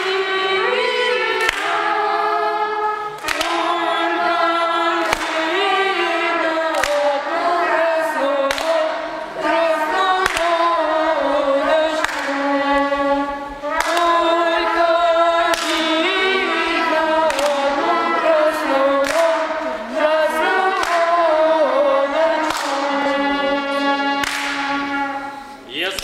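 A children's folk ensemble singing a Russian folk song a cappella in several voices, with sharp hand claps keeping a steady beat a little faster than once a second.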